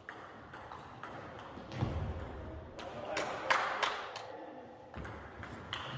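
Table tennis rally: the ball knocking back and forth off rubber paddles and the table in a quick, uneven run of sharp clicks.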